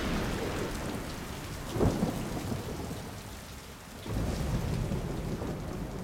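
Heavy rain pouring, with thunder: a sharp loud crack about two seconds in and deep rumbling from about four seconds on.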